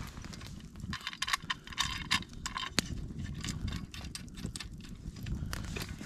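Irregular sharp crackles and rustling: a wood fire crackling on its embers in an earth pit, with footsteps shuffling on dry forest floor.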